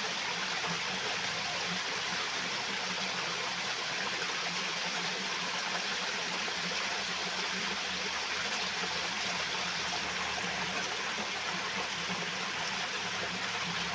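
Water flowing steadily, a continuous even rushing like a stream or channel.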